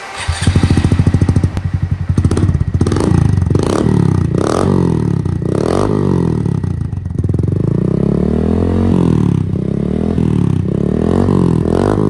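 Honda Monkey 125's single-cylinder four-stroke engine running through a Yoshimura RS-3 full exhaust system. It idles with a steady, even beat, then is blipped on the throttle again and again, the revs rising and falling each time.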